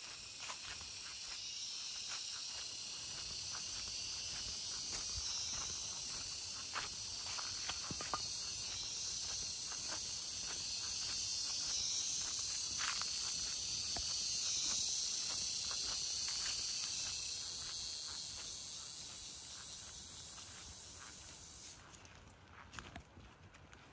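Cicadas buzzing in a loud, high-pitched chorus that shifts pitch every few seconds and stops abruptly near the end, over footsteps on dry leaf litter.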